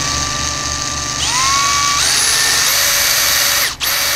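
Makita cordless drill whining as it bores into a gloss-black plastic motorcycle fairing. The motor speeds up in two steps, about one and two seconds in, then cuts out briefly near the end and starts again.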